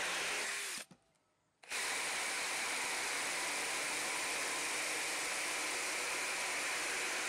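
Cordless drill driving a small chainsaw attachment, its chain cutting steadily through a small log. The sound drops out completely for under a second about a second in, then resumes unchanged.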